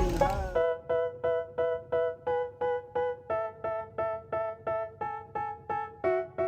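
Background music: a solo keyboard plays short repeated chords, about four a second, with the pitch shifting a few times. A fuller, noisier mix cuts off about half a second in.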